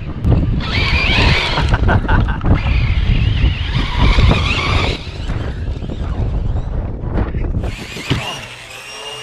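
Brushless electric motor of a Team Corally Asuga RC buggy whining up and down with the throttle, with tyres skidding and the chassis knocking as it is driven hard. The sound is strongest in the first five seconds, then eases off, with another burst of motor whine near the end.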